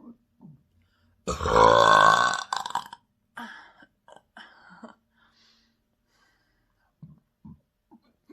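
A person's long, loud burp from deep in the chest, beginning about a second in and lasting about a second, trailed by a few weaker throaty sounds. Near the end come a few short, quiet throat sounds.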